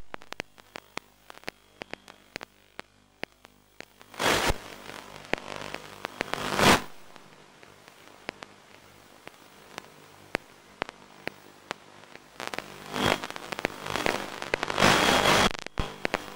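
Crackling radio static in an analog FPV downlink: a scatter of sharp clicks with loud bursts of hiss about four seconds in, near seven seconds, and again from about thirteen to fifteen and a half seconds.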